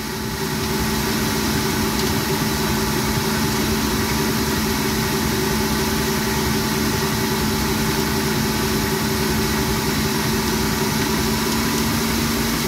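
Kenwood stand mixer motor running steadily at about speed 5½ with a constant hum, its flat beater working a wet liquid sourdough starter in a steel bowl.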